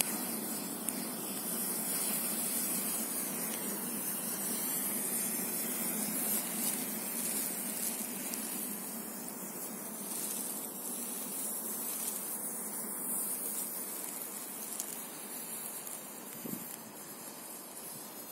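A 1 kg white smoke pyrotechnic charge burning with a steady hiss, which slowly grows quieter near the end as the charge burns down.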